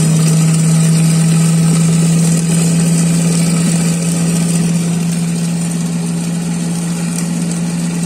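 Electric mixer motor running steadily with a constant low hum, beating the egg and garlic mix for mayonnaise.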